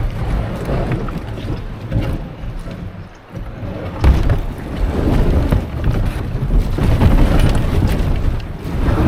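Wind buffeting the microphone: a loud, uneven rumble that swells and dips in gusts.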